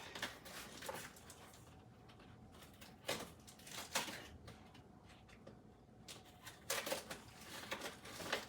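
Rummaging through a box of lamp parts and packaging: rustling with a few separate knocks, turning into a denser patch of rustling and clatter near the end.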